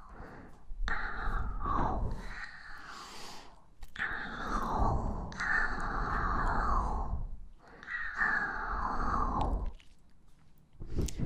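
Close-miked ASMR breathing: about four long, breathy exhalations, each a second or two, with short pauses between, the breath buffeting the microphone.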